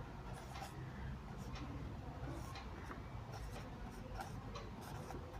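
Faint, irregular scratching of handwriting as a phonetic transcription is written out, stroke by stroke.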